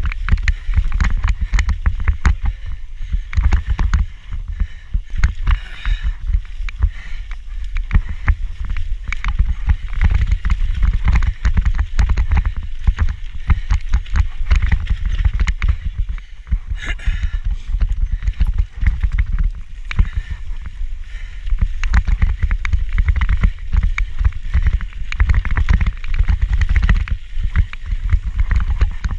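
Mountain bike ridden fast down a rough forest trail, with a loud, constant rattle from the action camera shaking in its mount over a low rumble from the ride.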